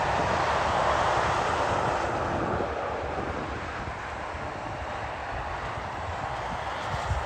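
A vehicle's tyres hissing on a rain-wet road as it passes, loudest in the first couple of seconds and then fading, with wind rumbling on the microphone.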